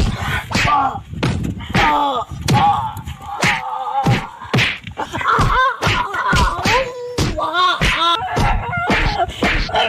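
Voices shouting and crying out in high, swooping calls, mixed with a rapid series of sharp smacks or blows.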